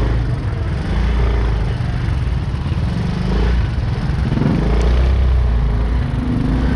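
Busy city street traffic: motorcycle and other vehicle engines running close by, with a loud low rumble that swells and eases.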